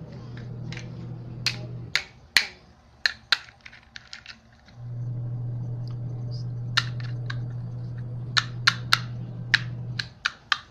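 A small motor hums steadily, stops about two seconds in, then starts again near the middle and runs until shortly before the end. Sharp clicks and taps of hard plastic toy pieces being handled are heard throughout, several of them close together.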